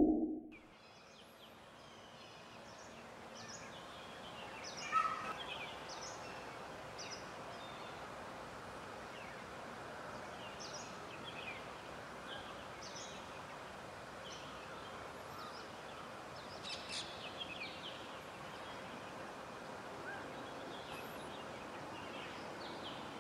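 Steady background hiss with small birds chirping now and then; the loudest call comes about five seconds in.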